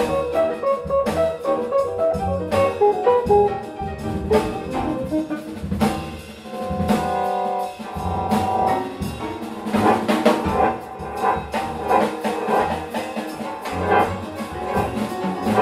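Big-band jazz: a guitar solo in quick runs of notes over drum kit and bass, with a held horn-section chord about seven seconds in.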